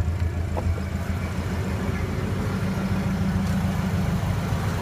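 1928 Ford Model A's four-cylinder flathead engine idling steadily.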